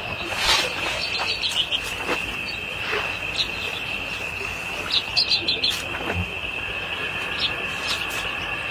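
Steady high-pitched chirring of crickets, with short higher chirps now and then. Over it, soft rustling and light thuds of a thick fleece blanket being shaken out and spread over a bed.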